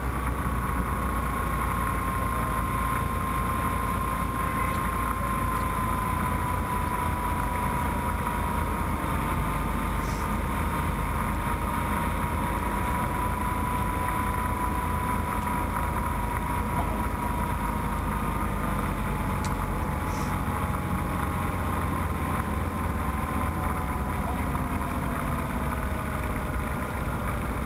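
Wind rushing over a Skywalker FPV plane gliding with its electric motor throttled off, heard on the onboard camera's microphone. A thin, steady whine runs through it and drifts slowly lower in pitch.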